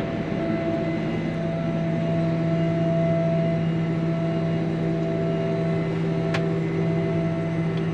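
Engine of a John Deere self-propelled forage harvester running steadily while the machine creeps backwards, heard from inside the cab as an even drone with a low hum and a higher steady tone. A single short click about six seconds in.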